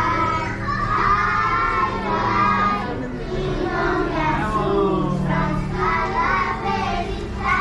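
A group of children's voices, several at once, singing and calling out over one another, over a steady low hum.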